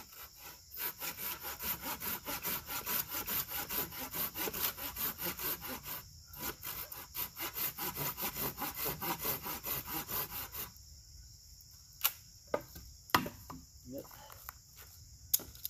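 Hand saw cutting firewood in quick back-and-forth strokes, about three a second, stopping about ten seconds in; a few sharp knocks follow.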